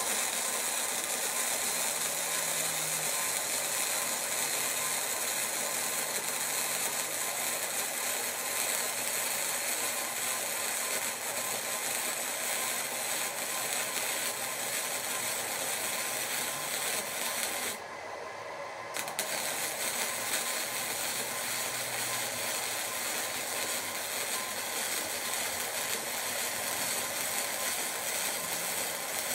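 Flux-core wire-feed welding arc from a Lincoln Pro MIG 140, running steadily and spatter-heavy without shielding gas. It stops for about a second some two-thirds of the way through, then the arc strikes again.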